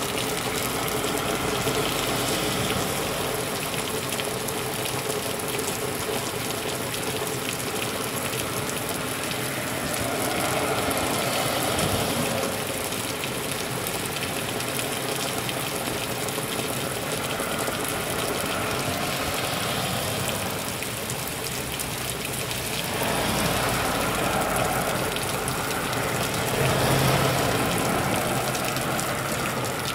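Heavy rain pouring down steadily on leaves and pavement, a dense even hiss. The rushing swells louder around ten seconds in and again near the end.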